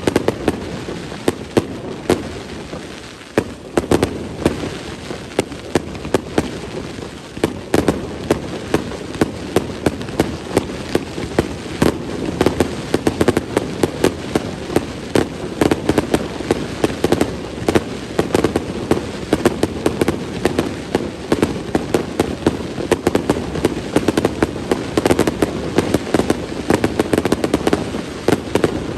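Aerial fireworks going off in a dense, continuous barrage: many sharp bangs and crackles, several a second, over a steady rumble of overlapping bursts, with a brief lull about three seconds in.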